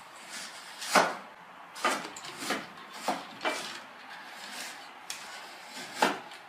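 A series of irregular knocks and thumps, about six in all, the loudest about a second in and another near the end.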